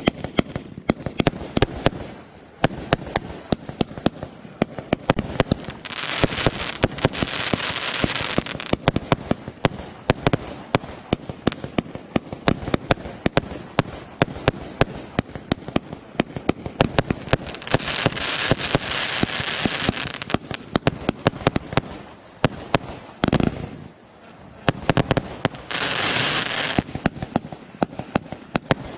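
A 196-shot compound firework cake firing in rapid succession: sharp launch thumps and bursts several times a second, with thicker stretches of hissing crackle three times. There is a short lull about three-quarters of the way through.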